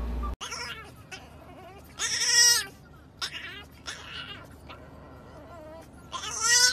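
French bulldog puppy howling: two loud, pitched cries, one about two seconds in and one near the end, with fainter short whines between them.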